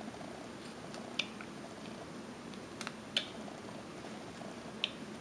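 Small whittling knife cutting into a basswood block: a few short, crisp clicks as the blade snicks through the wood, over a steady low background hum.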